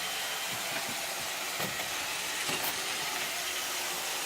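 iRobot Roomba 680 robot vacuum running steadily, a constant whirring hiss from its vacuum motor and brushes, with a couple of light clicks near the middle.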